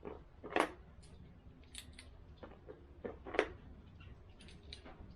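A few sharp clicks and clacks of handling, the loudest about half a second in and again about three and a half seconds in.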